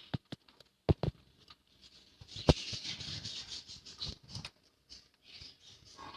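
Budgies moving about in their cage: a few sharp taps and knocks, the loudest about two and a half seconds in, with scratchy rustling in between.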